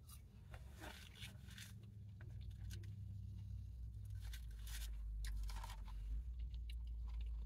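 Fast-food paper packaging crinkling and crunching in short, scattered bursts as food is handled and eaten, over a steady low hum.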